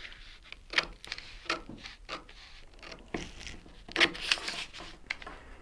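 Paper backing being peeled off a vinyl decal and handled: irregular crinkles, rustles and light taps, a little louder around four seconds in.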